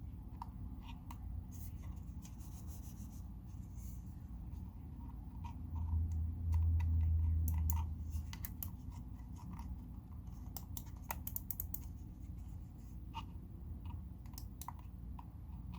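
Small plastic clicks and scratching as a wireless computer mouse is handled and its buttons pressed. A low rumble lasts about two seconds midway.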